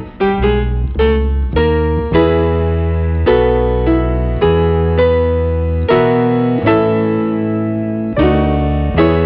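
Background music: electric piano playing a slow melody over held bass notes, with a new chord struck about once a second.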